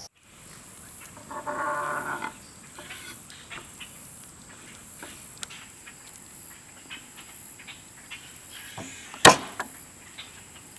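Quiet outdoor ambience with a thin steady high insect-like tone. A short, low animal-like call comes about a second and a half in, light clicks are scattered throughout, and one sharp knock sounds near the end.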